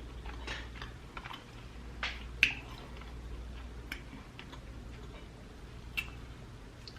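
Quiet, close-miked eating sounds: scattered soft mouth clicks and smacks while chewing, with a few sharper clicks about two and a half and six seconds in.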